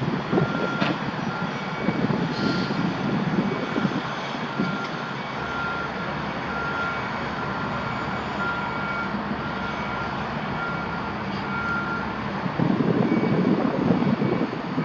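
Heavy vehicle engines rumbling, with a reversing beeper sounding in short, evenly spaced beeps from about a second in until about twelve seconds. The low engine rumble grows louder again near the end.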